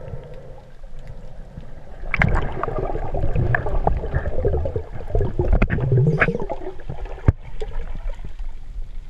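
Muffled water gurgling and sloshing recorded underwater through a GoPro housing as a snorkeler swims, growing louder and busier about two seconds in, with scattered clicks and knocks and one sharp click near the end.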